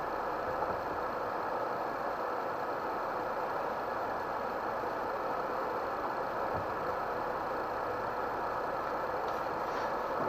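Steady engine and road noise heard inside a vehicle's cab while it creeps along in slow traffic.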